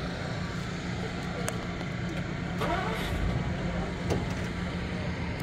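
A steady low rumble, with faint voices briefly rising a little past the middle.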